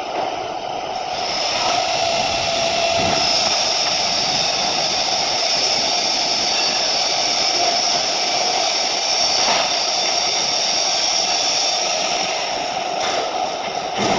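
TIG welding arc on 304 stainless steel, a steady hiss with a thin high whine. It starts about a second in and stops near the end, followed by a couple of short clicks.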